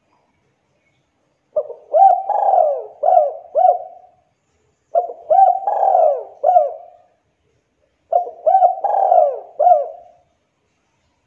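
Spotted dove (tekukur) singing its cooing song: three phrases of several short coos each, with pauses between them.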